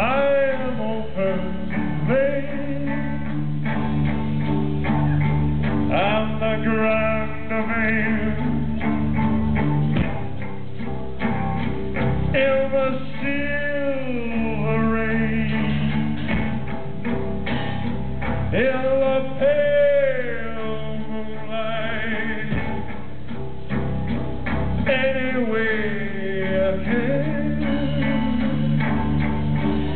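Rock band playing live, with a man singing long, pitch-bending lines over electric guitar and drums.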